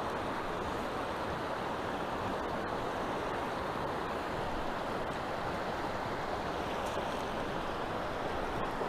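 Fast-running mountain creek rushing through riffles: a steady, even hiss of moving water.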